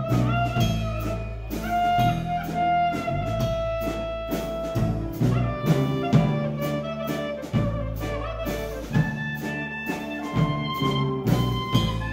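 Live band music: a clarinet plays a melodic line of held and sliding notes over electric bass, guitars and loud drums. The clarinet and drums are close and the rest of the band further back.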